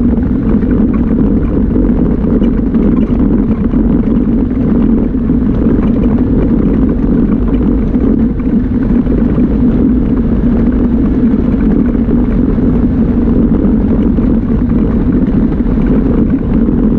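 Yamaha Viking side-by-side's single-cylinder engine and drivetrain running at a steady pace while driving, a constant low drone.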